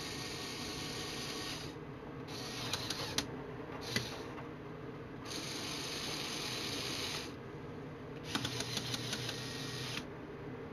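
LEGO Technic gearbox driven by small electric motors, whirring in several bursts that start and stop. Two of the bursts carry a fast rattle of clicking gears.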